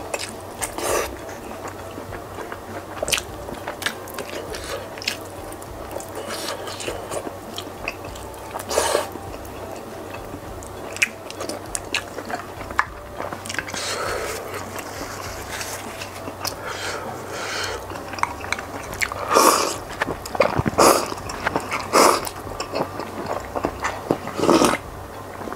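Close-miked eating: biting and chewing crispy fried snacks, with irregular crunches and wet mouth sounds. Louder bursts come in the last few seconds as he sips from a bowl.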